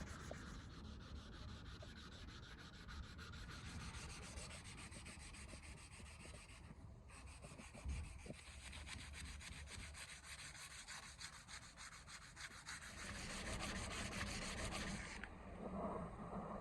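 Abrasive sanding on a steel blade: a steady, scratchy rubbing made of many fine, rapid strokes, breaking off briefly about seven seconds in and changing near the end.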